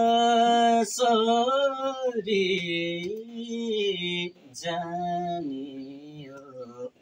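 A man singing a Nepali song unaccompanied, in long held phrases that waver in pitch, with short breaths between them.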